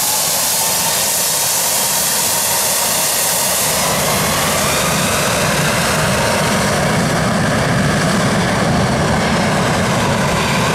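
Boeing 757-200's twin jet engines at high power for takeoff, a loud steady rush of jet noise. A deep rumble builds from about four seconds in as the thrust comes up.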